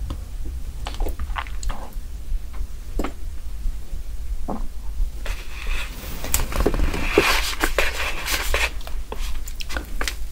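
Wooden spoon working through grilled eel and rice in a plastic box: scattered taps and clicks, then a denser crackly scraping about five seconds in, over a steady low hum.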